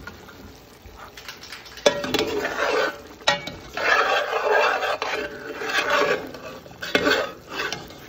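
Tongs turning chicken thighs in a pot of simmering braising liquid: the sauce sloshes and splashes in several stretches, with a few sharp knocks of the tongs against the pot.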